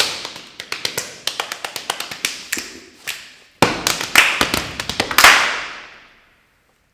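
Body percussion from dancers: sharp claps, slaps and taps in a quick, uneven rhythm, with the louder hits ringing on. A final flurry of hits fades out to silence about six seconds in.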